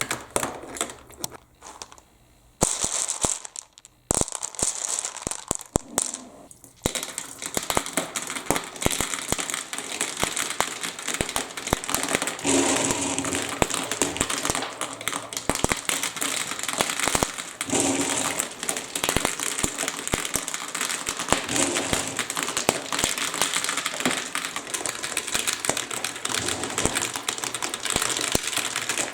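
Water running down a plastic block marble-run course, with marbles clicking and clattering along the pieces. Scattered clicks with short pauses for the first several seconds, then a steady wash of water under a constant patter of clicks.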